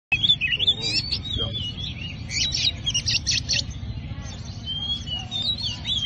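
Oriental magpie-robin singing a varied song of whistled glides and sharp, quick notes, over a low background rumble.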